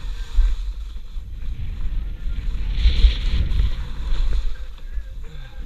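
Wind buffeting the microphone, a low rumble, over the hiss and scrape of skis running across snow. The scrape swells about three seconds in.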